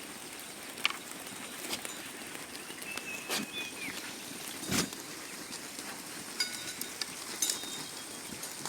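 Outdoor sheep-farm ambience: a steady background hiss with scattered sharp clicks and knocks, and a few brief faint chirps in the middle and later part.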